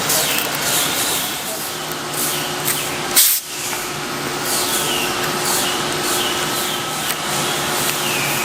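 Workshop machinery and air tools running steadily with a strong hiss and repeated short falling whines, and one short loud blast about three seconds in.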